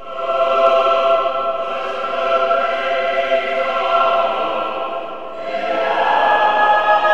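Choir singing slow, held chords; the harmony shifts to a new chord about five and a half seconds in.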